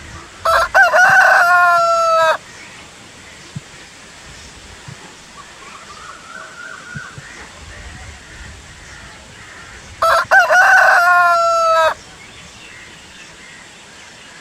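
Rooster crowing twice, about ten seconds apart. Each cock-a-doodle-doo lasts about two seconds and ends on a long held note, over a faint steady hiss.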